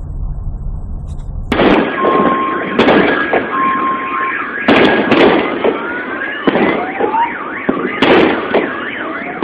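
A low vehicle rumble, then about a second and a half in a series of loud booms from the meteor air burst's shock wave: about five sharp blasts a second or two apart, with rumbling between them. Car alarms set off by the blast sound through it, first steady beeps, then a warbling siren sweeping up and down.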